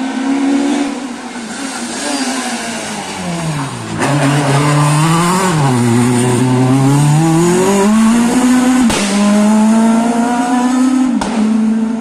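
Rally car engine slowing into a hairpin, its pitch falling for the first four seconds. It then accelerates out, climbing in pitch, with a break near nine seconds as it changes gear and then holds a higher, steady note. Sharp cracks ring out at about four and nine seconds.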